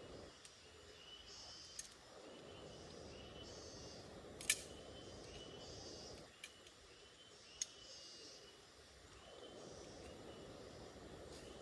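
Faint outdoor night ambience: short high chirping animal calls repeating about twice a second, under a low rushing noise that swells and fades every few seconds, with four sharp clicks scattered through.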